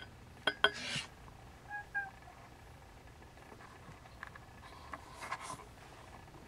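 Siamese kittens play-fighting: sharp knocks and a short scuffle of paws and bodies on carpet about half a second in, two brief high mews around two seconds, then more clicks and scrabbling near the end.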